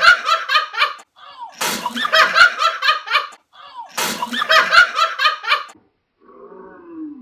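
Laughter: the same burst, a sharp crack followed by rapid rhythmic laughing, heard three times about two and a half seconds apart, like a short looping video clip. A faint brief voice follows near the end.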